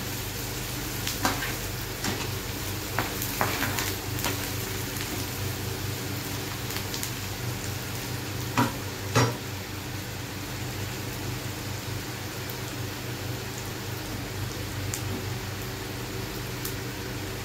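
Chopped onions frying in hot oil in a pan, sizzling steadily. A spatula scrapes and knocks against the pan several times in the first half, loudest twice at about nine seconds. A steady low hum runs underneath.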